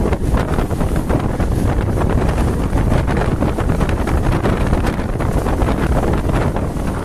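Wind buffeting the microphone at the open window of a moving vehicle, a loud, steady low rush with the vehicle's road noise mixed in.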